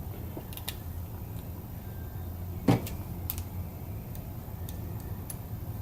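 Faint clicks and light handling knocks of small plastic and metal parts as a Dremel Multi-Max oscillating tool is put back together by hand, with one louder knock a little under three seconds in, over a steady low hum.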